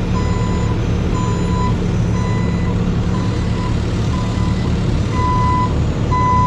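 Heavy construction machine backing up: its backup alarm sounds a single steady-pitched beep about once a second, each about half a second long, over the steady hum of its diesel engine.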